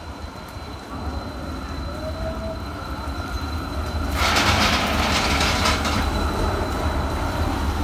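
Stadler Variobahn tram on wet street track, approaching and passing close by. A low rumble builds as it comes in, and about four seconds in a loud burst of hiss rises as it goes past.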